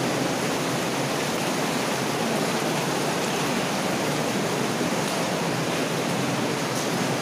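Steady rush of water in a flooded, stone-lined mine drainage culvert.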